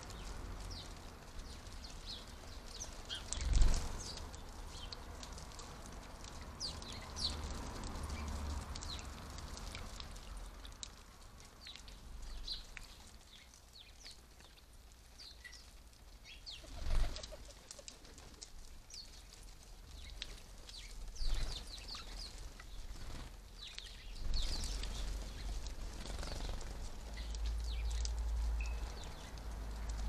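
House sparrows bathing in a bird bath: splashing and wing flutters with scattered short chirps, and a few loud thumps.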